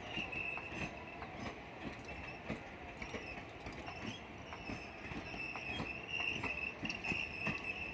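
Indian Railways passenger coaches rolling past, their wheels clicking irregularly over rail joints and points, over a steady high-pitched whine.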